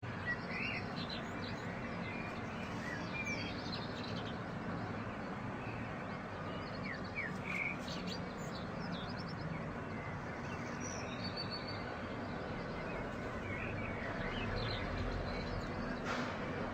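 Birds chirping, scattered short chirps and whistles over a steady background noise of outdoor ambience.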